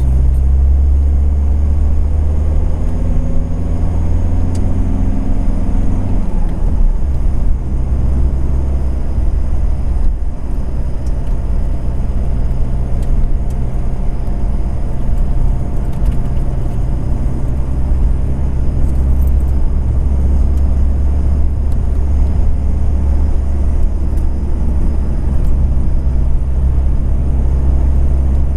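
Car driving along a road: a steady low rumble of engine and tyres, with an engine note that drops away about five seconds in.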